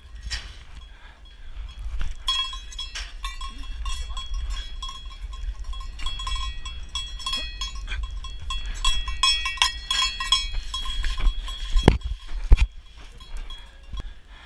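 A cowbell rung rapidly over and over for about ten seconds, starting about two seconds in, over a low steady rumble. Two heavy thumps come near the end.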